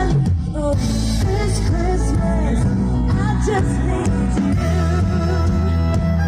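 Live band music: a Christmas pop song mid-performance, with singing over steady bass and backing instruments.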